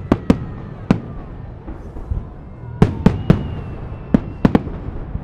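Festive fireworks salute: shells bursting overhead in sharp, irregular bangs, about nine of them, several coming in quick pairs and triplets, over a low rumble.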